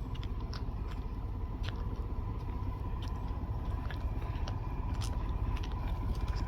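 Steady low rumble of a moving vehicle, with scattered light clicks and rattles and a faint steady high tone.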